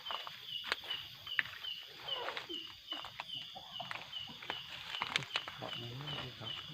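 A night insect chirping steadily at about three chirps a second, over scattered crackles of footsteps on the dark garden path.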